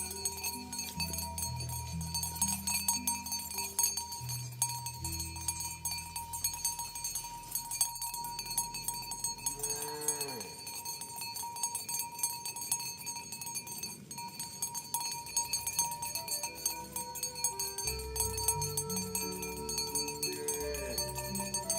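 Cowbells on cattle ringing on and off, with a slow, stepped bass line of music under them. A short sliding call comes about halfway through and again near the end.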